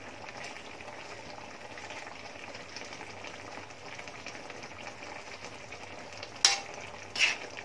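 Coconut milk simmering with a steady bubbling hiss in an aluminium pan of cream dory and bok choy, stirred with a spatula; the fish is already tender and near done. Two sharp knocks near the end.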